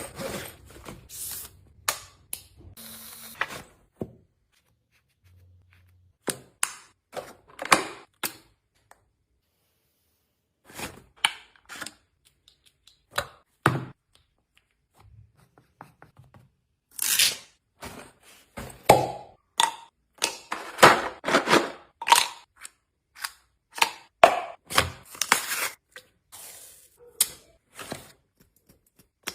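Bags and small items being handled and packed: irregular clicks, taps and soft thunks mixed with short bursts of rustling, with brief pauses between them and the busiest handling in the second half.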